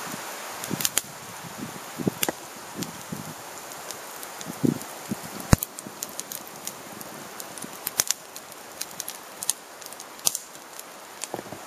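Campfire of split sticks crackling, with irregular sharp pops and snaps over a steady hiss. A few soft low thumps come in the first half.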